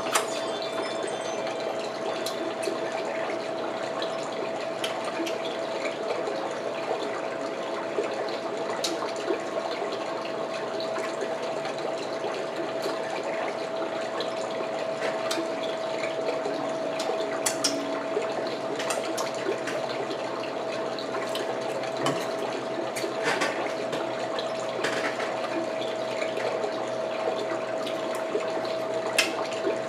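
Scattered clicks and cracks of someone eating king crab legs: shells snapping and chewing. Underneath is a steady hiss with a constant hum.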